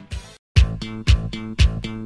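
Background music with a steady beat, about two beats a second. It cuts out completely for a moment about half a second in, then starts again.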